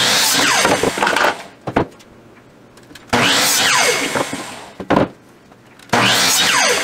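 Ryobi compound miter saw making three short cuts through wooden boards: each time the motor runs up, the blade cuts through, and the motor winds down with a falling whine. A short knock follows each of the first two cuts.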